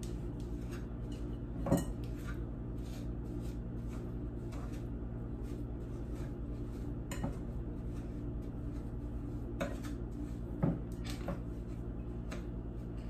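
A utensil scraping and clinking against a glass mixing bowl as butter and sugar are creamed by hand, with a few sharp clinks about 2, 7, 10 and 11 seconds in, over a steady low hum.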